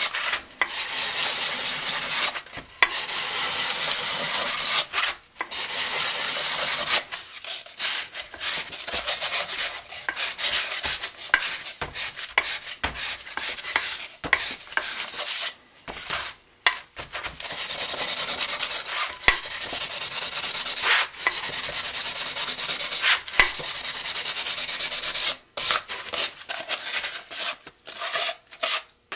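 Sandpaper rubbed by hand over a fiberglass rocket coupler tube, scuffing its outside so the switch band's epoxy will grip. Long stretches of steady scraping, broken by short pauses, with choppier, shorter strokes in the middle and near the end.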